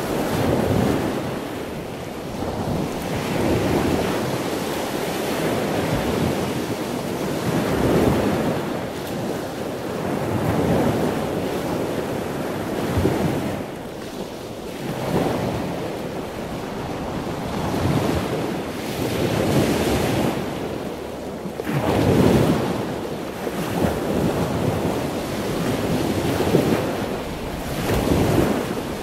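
Ocean surf washing onto a sandy beach, a continuous rush that swells and eases every couple of seconds, with wind buffeting the microphone.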